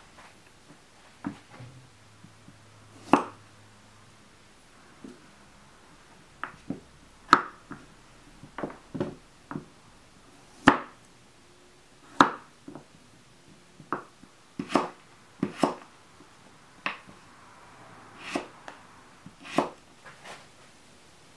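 Kitchen knife cutting a red carrot on a wooden cutting board, one slow cut at a time: each cut ends in a sharp knock of the blade on the board, irregularly spaced a second or more apart.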